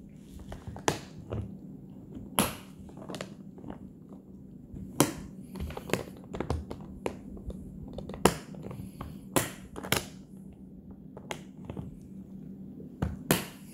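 Hard plastic gun case being shut and its latches snapped closed: a string of sharp plastic clicks and knocks, a dozen or so, irregularly spaced.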